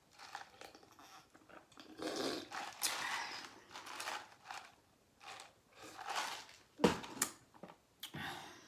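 Close-up chewing and mouth smacking while eating, in irregular wet bursts, with one sharp click about seven seconds in.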